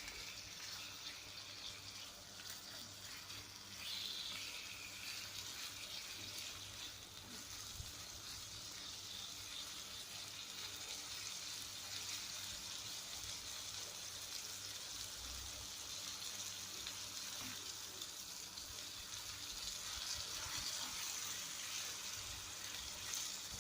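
Sliced liver with garlic and lemon juice frying in oil in a pan, a steady sizzle.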